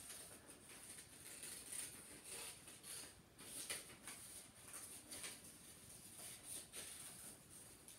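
Scissors cutting through coloured paper: a faint, irregular run of small snips, about one or two a second.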